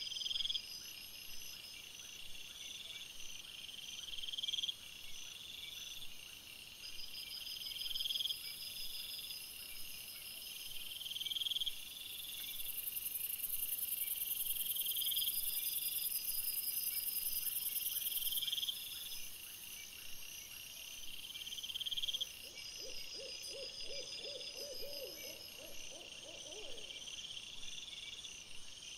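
Night insects chirping in a steady repeating pattern, one high chirp about every second and a half over finer trills, with a high steady hiss joining in the middle. A little before the end comes a short run of lower pulsed calls, about three a second, from another animal.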